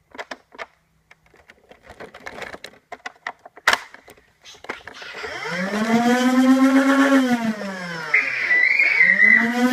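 Plastic clicks and knocks as foam rounds are worked into a Nerf Rival Zeus MXV-1200. About five seconds in, the blaster's battery-powered flywheel motors spin up with a rising whine and hold, then wind down and spin up again near the end.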